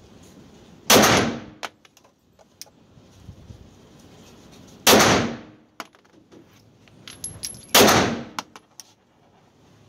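Three 9mm pistol shots from an Arex Rex Delta, spaced about three to four seconds apart, each ringing out with reverberation in an indoor range. Faint small clicks and clinks come between the shots.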